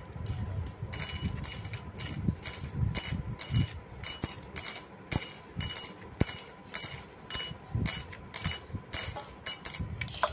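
Bangles jingling on the wrists in time with a small knife scraping the seeds out of halved bitter gourds over a steel bowl: a steady rhythm of about three clinks a second, starting about a second in, with soft scraping under it.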